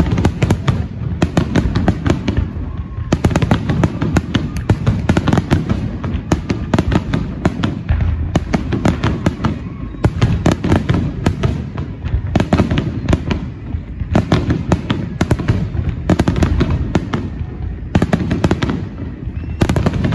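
Aerial fireworks shells bursting in quick succession: a dense run of sharp bangs and crackles, several a second, over a continuous low rumble.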